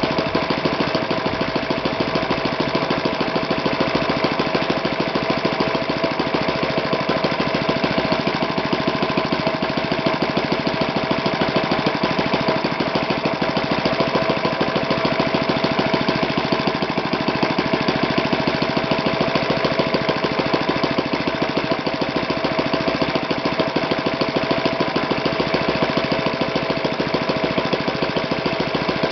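Magnum 120S single-cylinder four-stroke glow-plug model engine running steadily on the bench, turning its propeller. Its fast, even firing rhythm keeps the same speed throughout.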